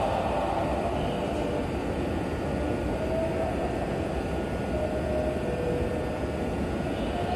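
JR East E129 series electric train standing at the platform with its equipment running: a steady hum with a faint, steady high whine.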